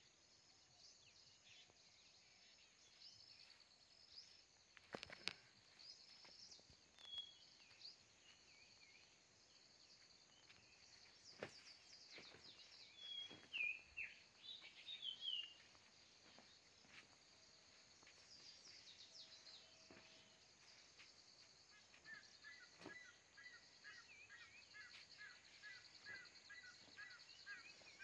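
Faint outdoor ambience: insects chirring steadily while birds call, with a few sliding calls in the middle and a run of short, evenly repeated notes near the end. A few sharp clicks stand out.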